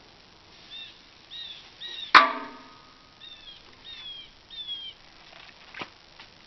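A strap's metal hook clanks once against the steel flatbed trailer about two seconds in, ringing briefly, as a strap is thrown over the round bales. A lighter tap follows near the end, and a bird chirps in two short runs of three calls.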